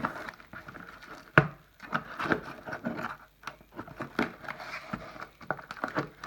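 A table knife slitting the packing tape along a cardboard box's seam: a sharp knock about a second and a half in, then a run of short scraping and crackling sounds as the blade cuts through the tape.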